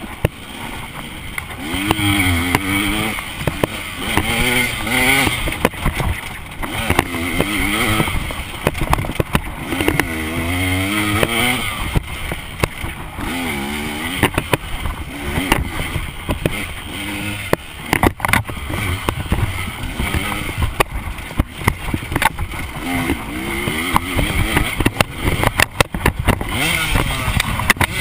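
KTM dirt bike engine revving up and falling back over and over as the rider accelerates and backs off, with hiss on the microphone. Several sharp knocks come through, a cluster of them near the end.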